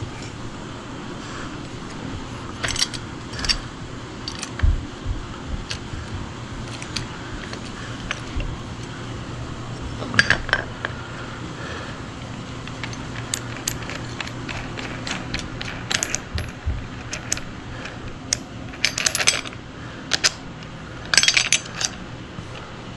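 Scattered clicks, taps and light plastic and metal knocks from a cordless angle grinder and its parts being handled while it is unboxed, with small clusters of clicks now and then, over a steady low hum.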